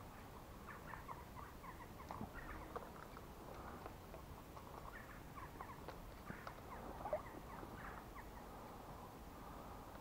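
Shallow brook trickling over stones and debris: faint, irregular bubbling and plinking water.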